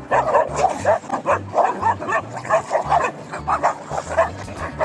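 A dog barking and yipping in quick repeated bursts, several a second.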